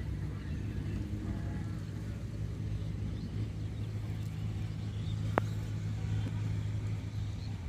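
An engine running steadily with an even low hum, which stops near the end. There is a single sharp click about five and a half seconds in.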